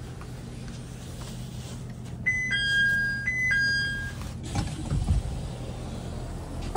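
Train door chime: a two-note high-then-low tone sounded twice, over the steady low hum of the stopped railcar's engine. About a second after the chime, the passenger door opens with a low thump and a click.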